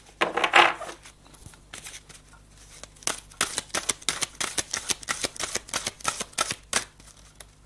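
A deck of oracle cards being shuffled by hand: a rapid run of small card clicks and flicks, sparse at first and busy from about three seconds in.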